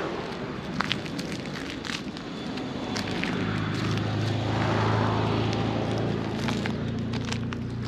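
An engine running, swelling louder and easing off, with a steady low hum setting in about three seconds in; scattered light clicks sound over it.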